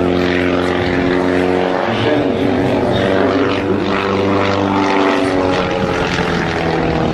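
Propeller aircraft engine droning steadily, its pitch shifting slightly about two seconds in.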